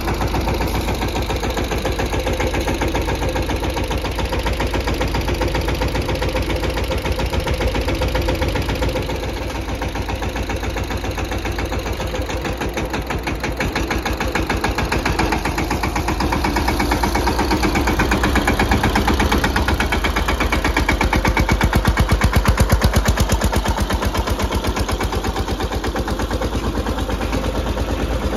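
Diesel tractor engines of a Mahindra Yuvraj 215 and a Sonalika DI 750 running under load while pulling against each other, with a fast, even thudding beat. They grow louder for a few seconds past the middle.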